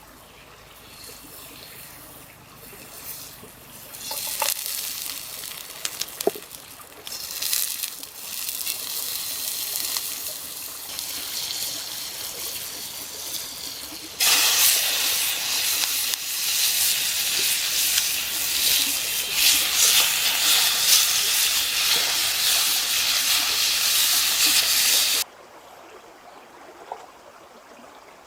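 Running, splashing water. About halfway through it turns much louder and steadier, a rushing, hissing water sound that cuts off suddenly near the end.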